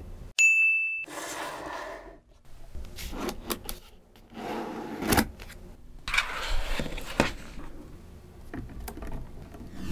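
Small magnetic balls and steel rods clicking and rattling as ladder sections built from them are handled and set in place, with a few short stretches of balls scraping and jostling against each other. Near the start there is a brief high steady beep, the loudest sound here.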